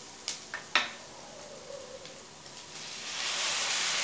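A few light knocks on the kadai, then chopped tomatoes sizzling as they go into hot butter and onions, the hiss swelling loudly about three seconds in.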